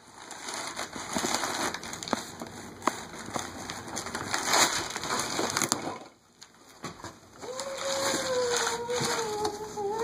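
Crinkly brown packing paper rustling and crackling as it is pulled out of a cardboard box by hand. From about seven and a half seconds a long drawn-out vocal sound on one slowly falling pitch joins in.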